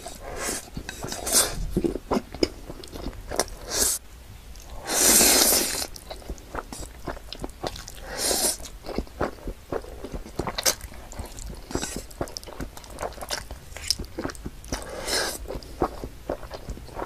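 Slurping and wet chewing of black-bean-sauce noodles, with many small mouth smacks. A long, loud slurp comes about five seconds in, and shorter slurps come near eight and fifteen seconds.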